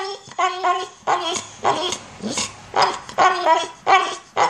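Pit bull-type dog giving a string of short, pitched whining cries, about two a second, some sliding in pitch: begging vocalization for food.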